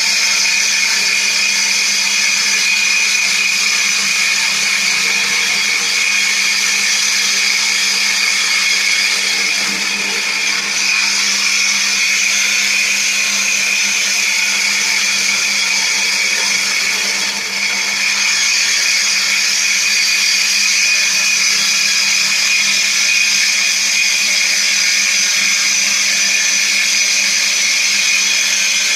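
Bosch GWS 8-100 CE angle grinder, converted to drive a 7-inch circular saw blade, running at low speed and cutting along a wooden board. It gives a steady high whine that sags slightly under load about ten seconds in and again a little past halfway.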